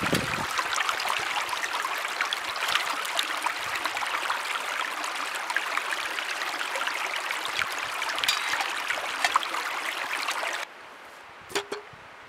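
Shallow river babbling and rushing over rocks as a metal cooking pot is dipped in to fill with water. Near the end the water sound cuts off abruptly, and a couple of light knocks follow as the pot is set down on a bed of peeled logs.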